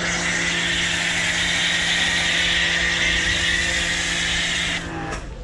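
Bigboi Washr Flo electric pressure washer spraying through its foam cannon: a steady hiss of spray over the pump motor's even hum, cutting off near the end as the trigger is released.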